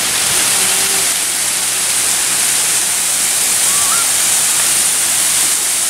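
Waterfall: water spilling down a rock cliff onto stone, a steady dense hiss with no change in level.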